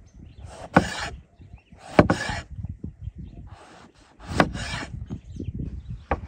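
Kitchen knife slicing through firm peeled produce on a wooden cutting board: about four rasping cuts, each ending in a sharp knock of the blade on the board.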